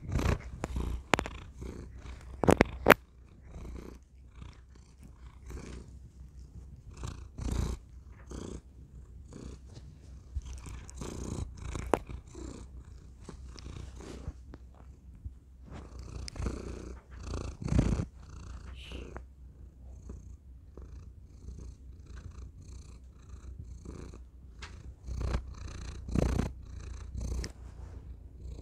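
Long-haired orange cat purring with its face right up against a tiny microphone, a close, steady low purr. Now and then there are sharp bumps and rubbing sounds as the microphone knocks against its fur and whiskers, loudest about three seconds in and again around eighteen seconds.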